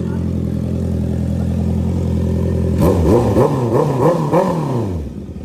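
Honda CB650R inline-four engine with an aftermarket full exhaust system idling steadily. About three seconds in, it is blipped about five times in quick succession, the pitch rising and falling with each blip, before it settles back to idle.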